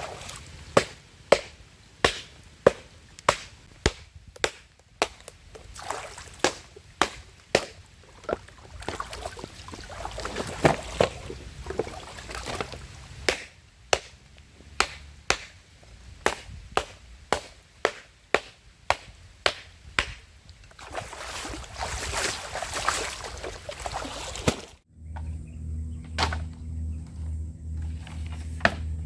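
Repeated sharp chopping strikes of a blade into wood or bamboo, about one to two a second in runs with short pauses. About 25 seconds in, the sound cuts abruptly to a low pulsing hum with a few light knocks.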